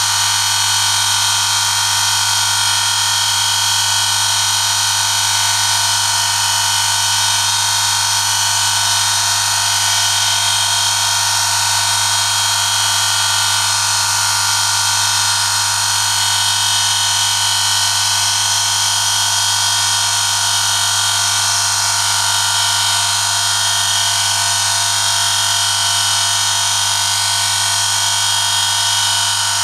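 Electric motor of an oil friction test rig running steadily, its spinning shaft rubbing metal on metal against a test sample pressed on by a 1 kg weighted lever, in a 5-minute wear test of Amsoil European Car Formula 5W-30 engine oil. It makes a loud, constant low hum with a high, steady whine over it.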